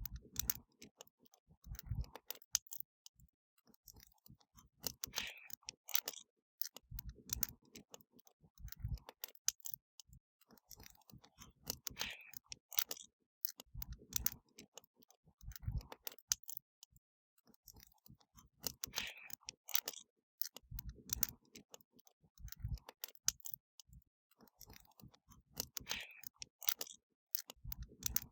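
Wood fire crackling: irregular sharp snaps and pops with low soft thuds between them, the same run of crackles recurring about every seven seconds.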